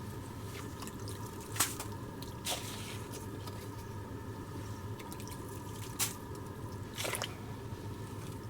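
Slushy water at an ice-fishing hole: four short wet drips and squelches spread through, over a faint steady hum.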